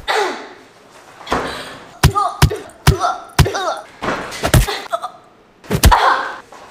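Punches and knee strikes landing on a body, a series of about eight heavy thuds, with short gliding vocal cries from a woman after several of them and a brief lull a little after the middle.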